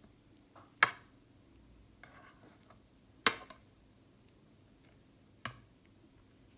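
Knife slicing banana, with three sharp clicks of the blade striking the dish about two seconds apart and a light scrape between the first two.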